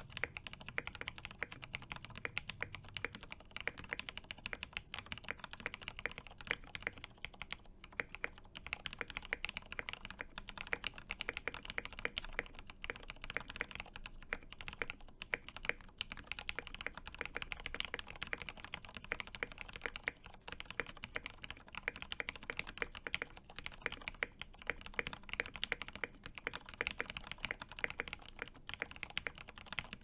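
Continuous fast typing on a gasket-mounted Gemini TKL custom mechanical keyboard with a carbon fiber plate, lubed Cherry MX Speed Silver linear switches and tall-profile MG Wahtsy keycaps. It gives a muted, deep keystroke sound, with a couple of brief pauses.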